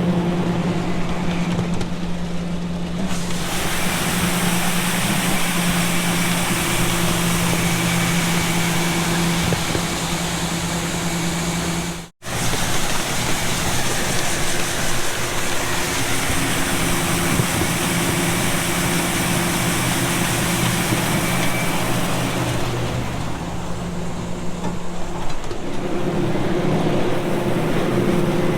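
Grain truck engine running steadily under a loud rushing hiss, which fades out near the end, leaving the engine hum.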